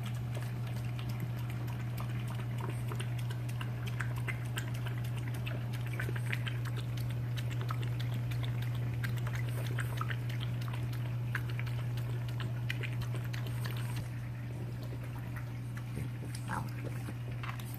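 French bulldog lapping water from a stainless steel bowl, a quick run of small clicks and splashes that stops about fourteen seconds in. A steady low hum runs underneath.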